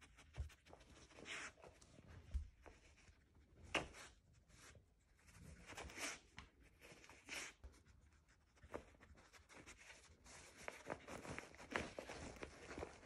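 A dog nosing and pawing through a plush fabric snuffle mat, hunting for hidden treats: faint, irregular rustling of the cloth with scattered small clicks and scuffs.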